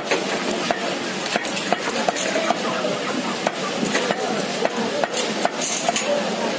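Large cleaver chopping chicken on a wooden stump block: short sharp chops, irregular, about one or two a second, over a steady background hiss.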